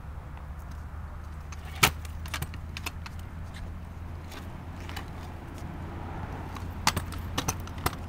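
Aluminium kick scooter clattering on concrete: a handful of sharp clacks from the deck and wheels, the loudest about two seconds in and a quick cluster near the end, over a steady low rumble.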